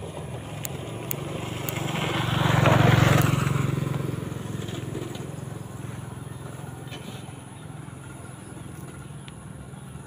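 A motor vehicle passes, its engine noise swelling to a peak about three seconds in and then fading over several seconds, above a steady low hum.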